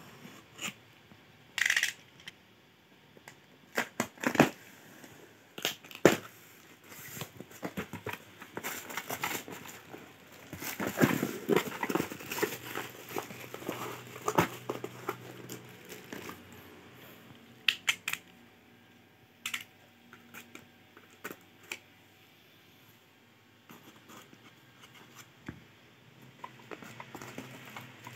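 Packaging being opened and handled: plastic or paper wrapping crinkling and tearing, with scattered sharp clicks and knocks. The handling is busiest in the middle and sparse near the end.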